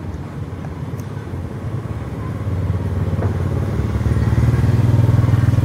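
An engine running, a low steady hum that grows louder through the second half.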